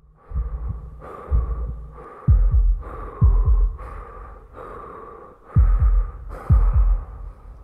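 Heartbeat sound effect: deep thumps falling in pitch, in lub-dub pairs about once a second, over a pulsing hum, with a short lull in the middle.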